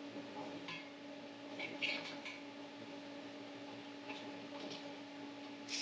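A few light metallic clinks and short scrapes of steel parts being handled and set against a welding fixture table, over a steady low shop hum.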